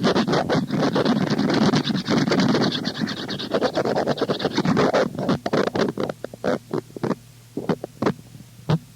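Harsh noise music: a loud, dense wall of crackling, distorted noise packed with clicks. About five seconds in it breaks up into separate stuttering bursts with quieter gaps between them.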